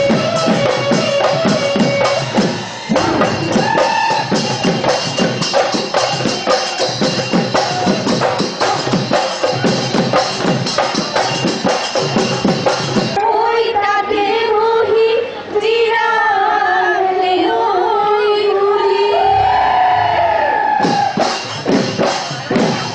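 Bihu folk music with fast, dense drumming and a melody over it. About thirteen seconds in the drums drop out and the wavering sung melody carries on alone; the drumming comes back near the end.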